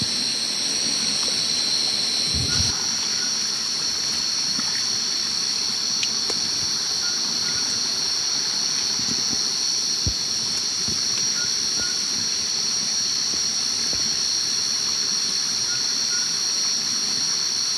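A steady, shrill chorus of night insects, two high tones held without a break, with now and then a short faint chirp. A few soft knocks and rustles of boots on rocks and leaf litter lie underneath.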